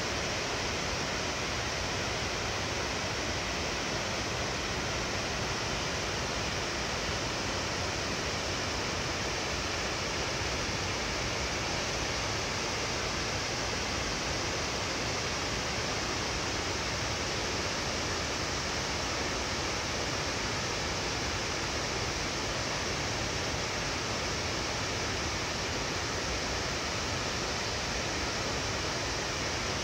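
Water spilling through a gated concrete dam's spillway and over the weir below, a steady, unbroken rushing noise.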